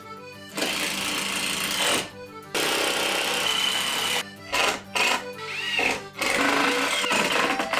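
Cordless power screwdriver driving screws to fix metal brackets holding a wooden board to the wall: three runs of a second or two each, with two short blips between, over background accordion music.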